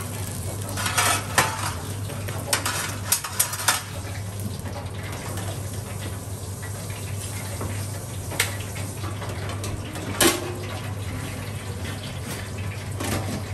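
Stainless-steel kitchenware clattering: tongs, a perforated steel tray and a deep fryer's wire basket and metal lid knocking and clinking. A quick run of clinks comes in the first few seconds, then single clanks about eight and ten seconds in, the later one ringing briefly, over a steady low hum.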